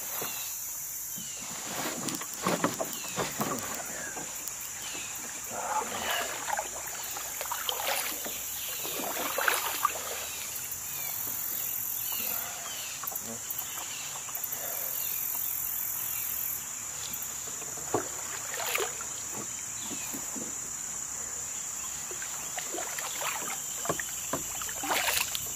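Cicadas singing steadily and high-pitched in the trees, with the splashes of a kayak paddle dipping into the water and now and then a knock or rustle against the kayak.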